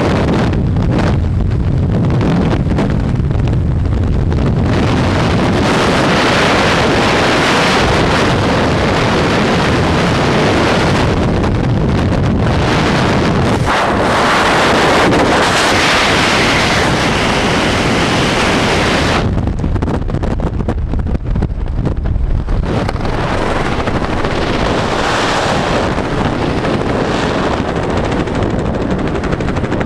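Loud wind rushing and buffeting over the camera's microphone in skydiving freefall. About two-thirds through, the hiss loses its highest part and turns rougher, but it stays loud.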